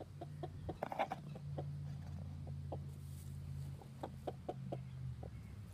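Broody hen clucking: a steady run of short, soft clucks, about three or four a second, with a louder, harsher call about a second in.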